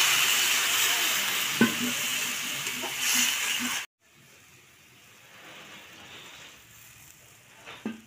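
Water poured into hot oil and fried vegetables in an iron kadai, sizzling loudly with a few light knocks. About four seconds in it cuts off abruptly to a much quieter sizzle as the watery vegetables simmer.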